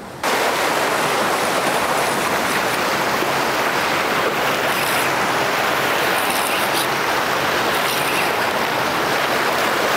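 Steady wash of ocean surf breaking over jetty rocks, an even rushing noise that comes in suddenly right at the start and holds level throughout.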